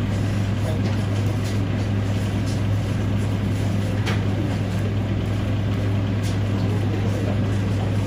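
A steady low hum over a noisy hiss, unchanging throughout, with a faint click about four seconds in.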